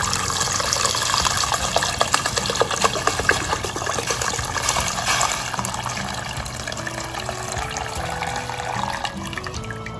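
Chicken broth pouring from a carton in a steady stream into a large stainless steel pot of soup, splashing into the liquid and gradually softening over the second half. Soft background music plays underneath.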